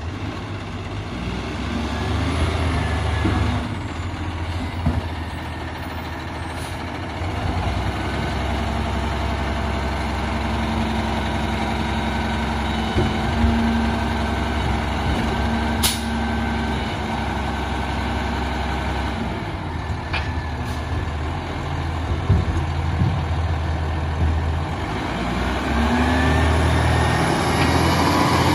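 Peterbilt 348 rear-load garbage truck's diesel engine running with a steady low rumble, broken by a couple of short sharp sounds. The engine rises in pitch near the end as it revs up.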